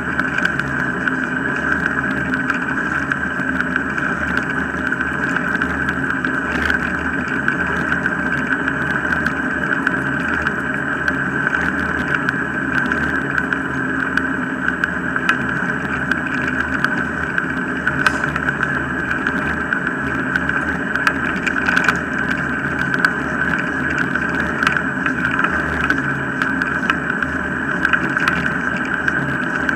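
Steady rolling noise of a dog-drawn wheeled mushing rig running on a wet tarmac path, with small rattles and clicks from the rig.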